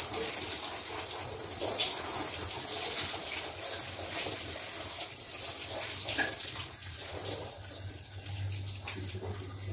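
Tap water running and splashing into a bathroom sink, with the squishing and rubbing of a wet, soapy mesh bath puff. The water sound grows quieter near the end.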